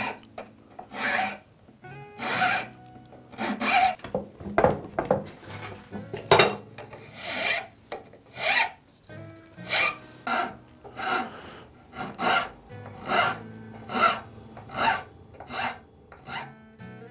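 A hand file cutting the teeth of a wooden gear, in slow, even strokes about one a second.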